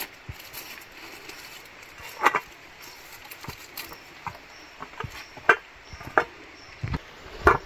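Scattered knocks and clatter of firewood sticks and an aluminium cooking pot being handled at a small wood fire: half a dozen sharp knocks spaced about a second apart, over a low steady background.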